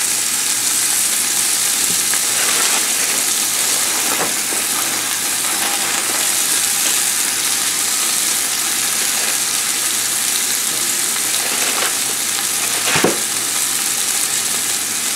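Ground beef and onions sizzling steadily as they fry in olive oil in an enamel pot, with a few brief knocks.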